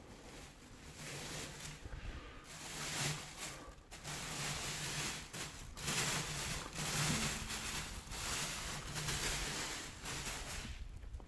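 Packaging being handled and rustled in uneven swells, with short pauses between.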